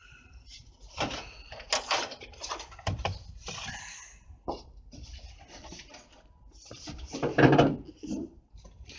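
Irregular rubbing, rustling and light knocks, with a louder scrape about seven and a half seconds in.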